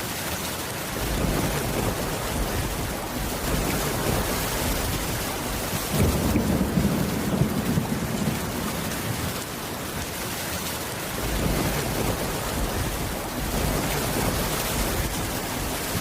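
Steady rain falling on a wooden cabin roof, with low rumbles of thunder swelling in and out; the strongest rumble starts abruptly about six seconds in.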